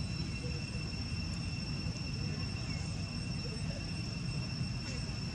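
Outdoor ambience: a steady high-pitched insect drone over a constant low rumble.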